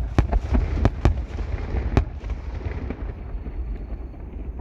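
Aerial fireworks shells bursting: a quick run of about six sharp bangs in the first two seconds over a low rumble, which then dies down.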